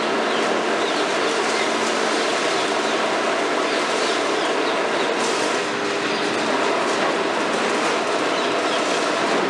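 KMC 400 high-reach demolition excavator, built on a Hitachi 350, working: engine and hydraulics run under load as the long boom moves, giving a steady, dense mechanical clatter with faint whining tones underneath.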